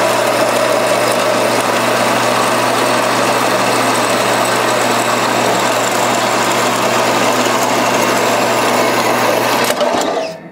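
Horizontal metal-cutting bandsaw running and sawing through an aluminum cylinder head with an aluminum plate bolted to it: a steady motor hum under the blade's cutting noise, stopping abruptly near the end.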